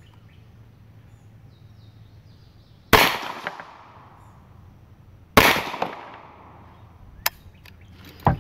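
Two shots from a pistol-caliber carbine, about two and a half seconds apart, each trailing off in a long echo. Near the end come a single sharp click and a few smaller knocks.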